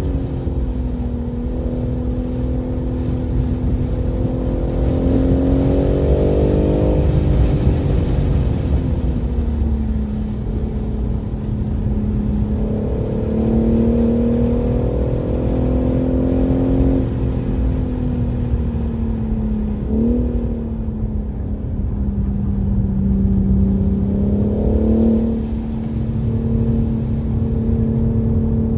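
A BMW M3 Competition's twin-turbo inline-six being driven hard on track. Its pitch climbs and drops several times through acceleration, gear changes and braking, with a quick rev blip about twenty seconds in, over a steady low rumble.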